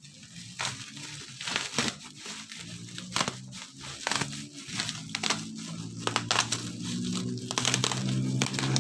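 Black plastic parcel wrapping and bubble wrap crinkling and tearing as a package is ripped open by hand, in irregular crackles. A low engine drone builds up over the last few seconds.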